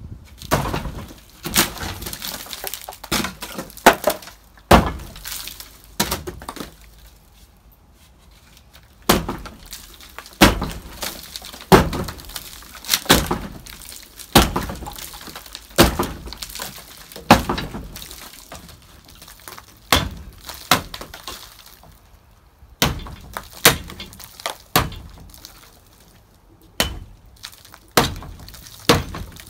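Rotten wooden planks of an old railway carriage's wall being smashed out by hand, blow after blow from a long metal bar, each strike a sharp crack with splintering wood. The blows come about one every second and a half, with a brief lull near the start.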